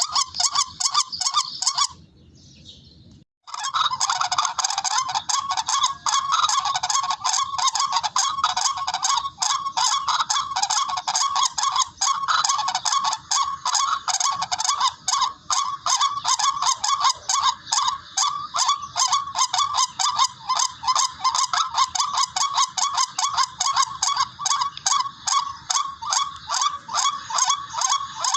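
Recorded rail calls, the tikling call played as a bird-hunting lure: a loud, rapid, continuous run of harsh repeated notes. It breaks off briefly about two seconds in, then resumes.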